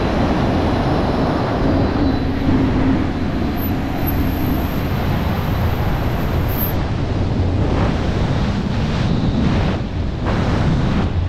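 Loud rushing freefall wind buffeting the camera's microphone during a skydive, rising in a few short gusts in the second half.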